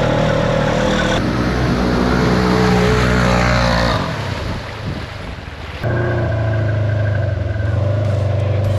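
Polaris RZR 900 side-by-side's engine running steadily while driving. Its sound drops away about four seconds in and comes back suddenly a couple of seconds later.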